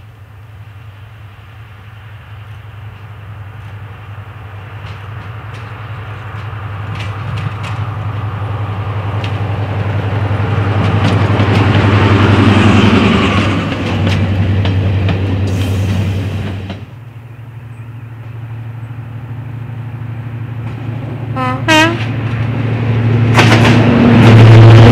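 Diesel locomotive working hard as it approaches, its engine note growing steadily louder with scattered rail clicks. The sound drops away suddenly about two-thirds of the way through, then a diesel engine builds up again, with a brief pitched blip shortly before the end.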